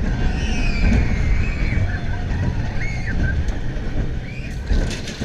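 Zierer Force 190 steel coaster train running along its track, with a steady low rumble and wind on the microphone. A wavering high squeal rises and falls over the first few seconds, and a few sharp clacks come near the end.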